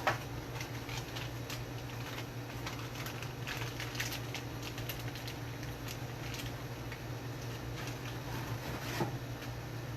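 Light clicks, taps and rustles of hands handling small parts while fitting pickups and pickup foam into a bass body's pickup cavities. A sharper tap comes right at the start and another about nine seconds in, over a steady low hum.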